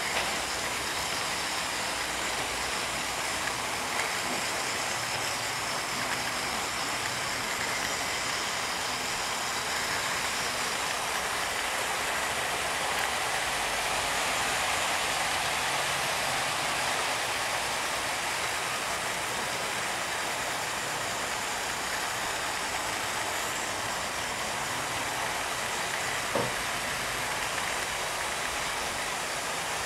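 OO gauge model train running along its track, heard from a camera riding on the train: a steady, even running noise of wheels and motor, with a couple of faint clicks.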